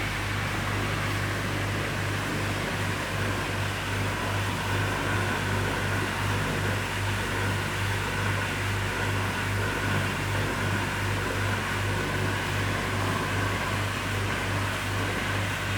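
Shotcrete machine running steadily on the job: a constant low mechanical hum that pulses evenly a few times a second under a hiss of air and material.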